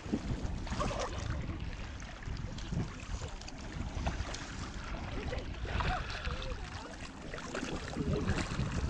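Wind rumbling on the microphone over shallow lake water, with faint distant voices now and then.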